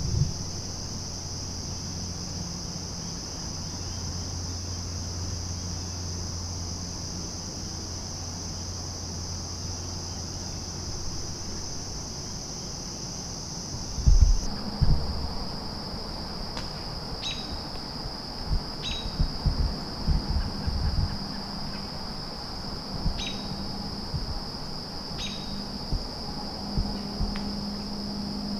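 Steady high-pitched chorus of crickets in late-summer woods, with its pitch dropping slightly about halfway. A few short bird chirps sound in the second half, and low thumps come and go.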